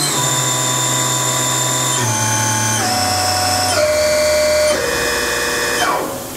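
The Haas Super MiniMill's 7.5 HP spindle running at high speed after being taken up to 10,000 RPM, giving a steady electric whine. Its pitch steps down about four times as the speed is lowered. About six seconds in, the whine glides down and fades as the spindle spins down to a stop.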